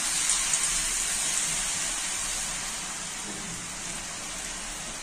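Freshly added masala-coated raw potato sticks deep-frying in hot oil: a steady, rain-like hiss of sizzling that eases slowly.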